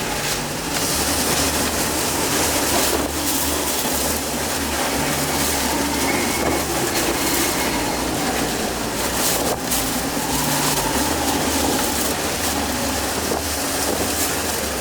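Category 4 hurricane eyewall wind and driving rain buffeting a vehicle, heard from inside, rising and falling in gusts with a few sharp hits, over a low steady engine and road rumble.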